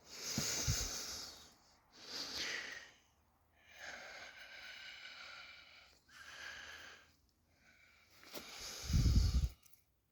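A man's heavy breathing close to the microphone, a series of loud, hissing breaths about every couple of seconds as he clambers through a tight rock crevice, with one heavy low thump near the end.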